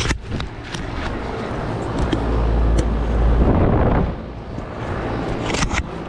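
Footsteps on grass, with a low rumble that swells about two seconds in and drops away after about four seconds.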